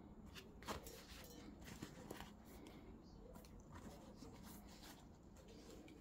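Quiet handling noise: soft rustling of a leather gear-stick gaiter and a few light clicks from its plastic frame and the gear knob as they are worked by hand. The sharpest click comes about a second in.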